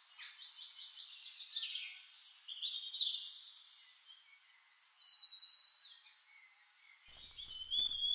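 Birds singing and chirping, with many short calls and quick trills overlapping. Faint low rustling comes in near the end.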